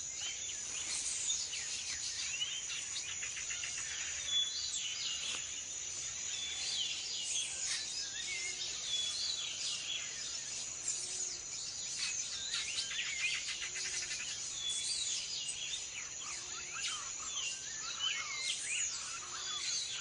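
Tropical rainforest ambience: a steady high insect drone under many overlapping bird chirps and whistled calls. In the second half a short low hoot repeats about every two seconds.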